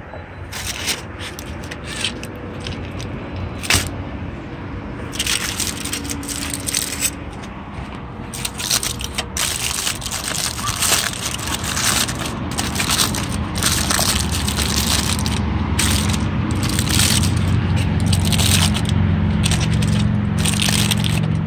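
Aluminium foil crinkling and rustling in irregular bursts as it is peeled open and handled. A low rumble builds under it in the second half.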